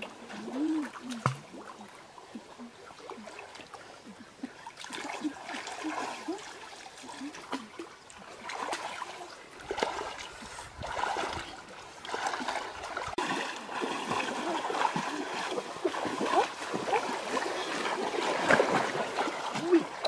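Water splashing and trickling in irregular bursts, busier in the second half.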